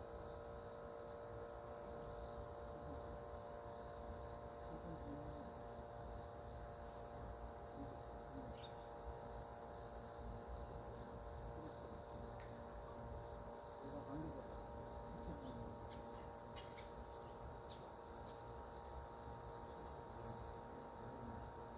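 Insects chirping: a faint, high, pulsed chirp repeating about once a second, over a steady low hum.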